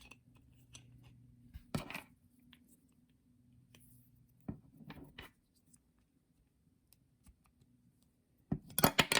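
Plastic Kid K'Nex building pieces being handled and snapped together: scattered light clicks and knocks, then a quick cluster of louder plastic clatter near the end.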